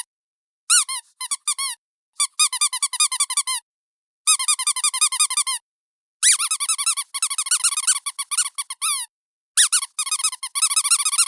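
Squeaky dog toy squeezed over and over in quick runs of high-pitched squeaks, several a second, each one rising and falling in pitch. The runs come in about five bursts separated by short silent pauses.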